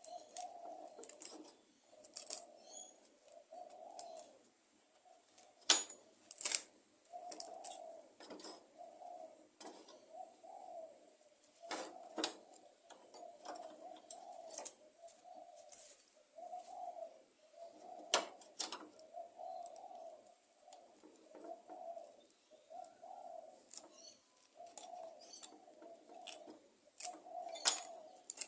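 Birds cooing in a steady repeated series of short low calls, with a few sharp knocks about 6, 12, 18 and 28 seconds in.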